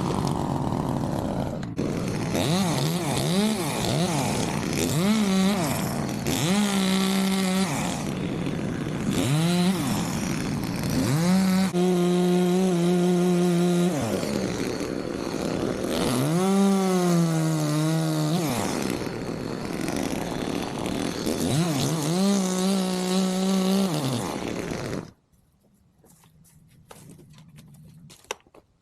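Chainsaw engine revving up and held at full throttle in repeated bursts of a few seconds, its pitch sagging under load as it cuts pecan wood, then dropping between cuts. It shuts off near the end.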